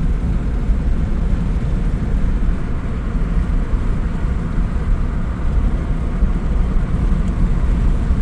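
Moving vehicle driving along a road: steady, low road and engine noise.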